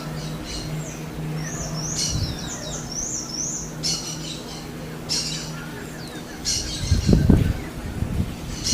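Smooth-billed anis calling: rough, hissy high calls repeating about once a second, with a quick run of rising chirps between one and three and a half seconds in. A low rumble about seven seconds in is the loudest sound.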